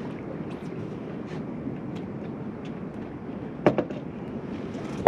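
Steady low rumble of a fishing boat's outboard motor idling, with one sharp knock about three and a half seconds in as the fish and jig are swung aboard.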